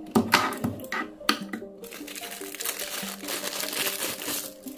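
Thin clear plastic zip-lock bag crinkling and crackling as it is picked up and handled, with a few sharp crackles in the first second or so and dense crinkling through the middle. Background music plays underneath.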